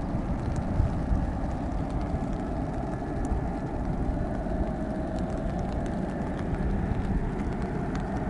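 Steady low rumble of jet aircraft engines, with a faint whine that rises out of it about halfway through.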